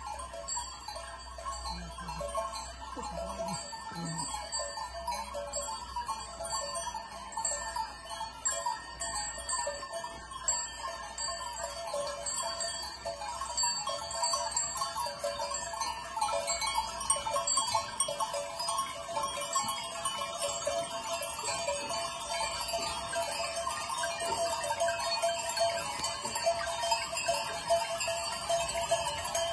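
Flock of sheep and goats on the move, their many bells jangling continuously, louder toward the end as the flock comes close, with occasional bleating.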